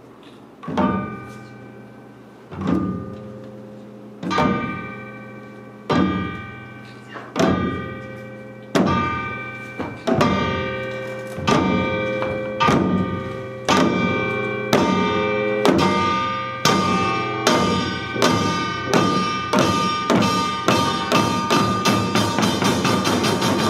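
Korean samulnori percussion ensemble of janggu hourglass drums playing together in unison, with ringing strokes. The strokes start slow, about one every two seconds, then speed up steadily to several a second and grow louder.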